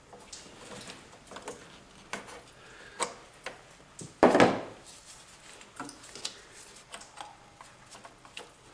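Light metallic clicks, taps and scrapes of needle-nose pliers and hands working the old thermostat out of its housing on a Chevy S10 Blazer engine, with one much louder knock about four seconds in.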